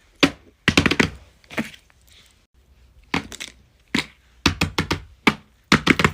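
Fidget toys being handled, with quick clusters of sharp clicks and clacks, some single and some in fast runs of several.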